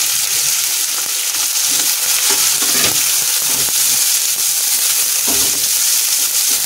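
Chopped onions sizzling in hot oil in a non-stick kadai, a steady frying hiss, with the spatula scraping and stirring through them every so often.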